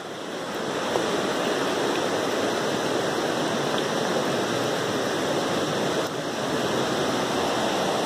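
Waterfall rushing steadily, a constant wash of falling water that swells over the first second and then holds level.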